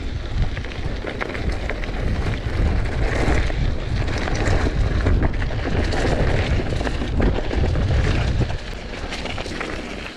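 Mountain bike riding down a dirt singletrack: tyres rumbling over the ground and the bike rattling with many small clicks, mixed with wind buffeting the action camera's microphone. The rumble drops off noticeably near the end.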